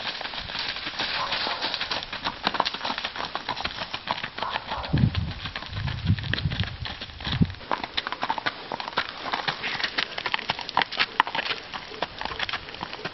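Hoofbeats of a ridden Rocky Mountain Horse gelding on a leaf-strewn road: a quick, irregular run of clip-clops. About five seconds in, a low rumble lasts a couple of seconds.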